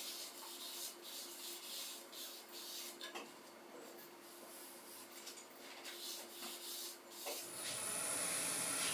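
Paper towel rubbing finish onto a wooden bowl spinning on a wood lathe: an uneven scuffing hiss that rises and falls, over the lathe's faint steady hum. Near the end a steadier, louder hiss with a high whine takes over.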